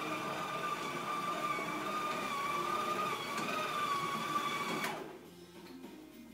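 Electronic sound effect from a ride-on toy train's speaker: a steady, slightly wavering tone over a noisy rumble that stops suddenly about five seconds in.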